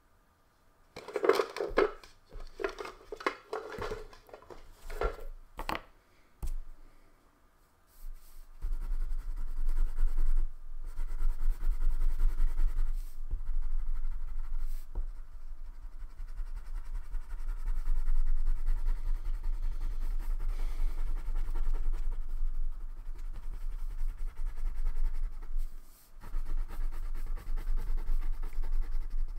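Wax crayon colouring on paper, rubbed back and forth in continuous scratchy strokes that start about eight seconds in, with a brief pause near the end.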